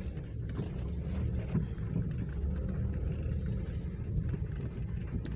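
Car's engine and tyres heard from inside the cabin while it drives, a steady low rumble.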